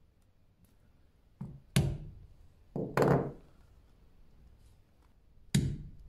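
A mallet striking a diamond pricking iron into leather to punch stitching holes. There are three sharp knocks, the first two each just after a lighter tap.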